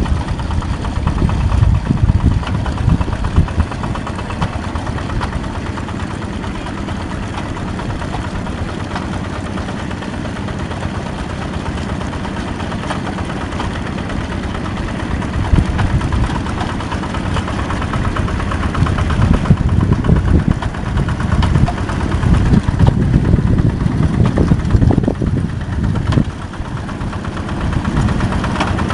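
Yanmar two-wheel hand tractor's single-cylinder diesel engine running steadily with a fast, even chugging, working under load as it plows through a flooded rice paddy; its loudness swells and eases as the load changes.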